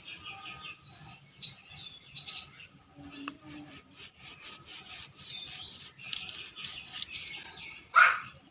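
A wooden tool handle is twisted down into wet cement to bore a hole through the base of a freshly moulded cement flowerpot, making a soft gritty rubbing. Birds chirp and trill over it, with a fast run of repeated high notes in the middle. A loud short call near the end is the loudest sound.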